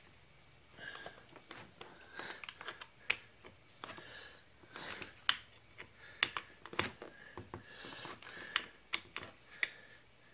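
Irregular clicks, taps and short scrapes from the plastic housing and metal parts of a Stihl MS 250C chainsaw being handled, as the screws holding the engine in its frame are snugged down.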